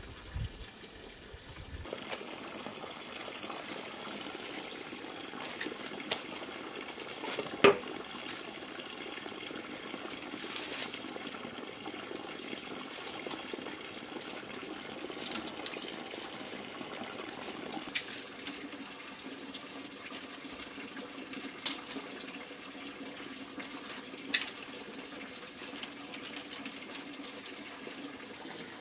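Steady sound of water with scattered sharp knocks and clicks, the loudest about eight seconds in, over a thin high steady tone.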